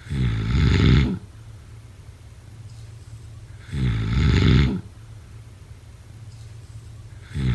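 A person snoring: loud snores about a second long, coming roughly every three and a half seconds, two in full and a third beginning near the end. A steady low hum lies underneath between the snores.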